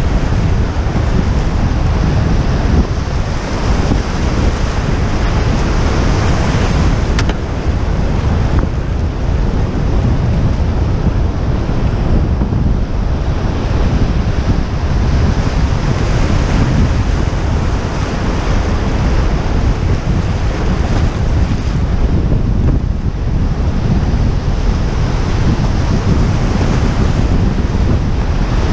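River rapids rushing loudly and steadily around a canoe, with wind buffeting the microphone.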